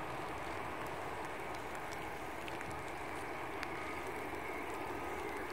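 Jet engine noise of an Airbus A380 climbing away after takeoff, heard from the ground: its four Rolls-Royce Trent 900 turbofans make a steady, even rush with a faint high whine running through it.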